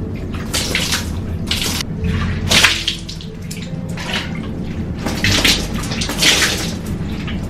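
Running water splashing in irregular bursts, about a second apart.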